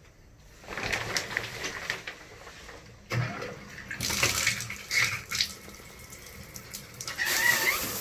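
Rattle of a shower curtain being pulled open, then water running and splashing in a bathtub in surges. A short wavering high tone sounds near the end.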